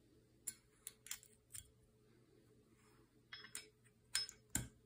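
Scattered light clicks and taps of small metal screws and pistol parts being handled as screws are tried in an optic mounting plate on a pistol slide.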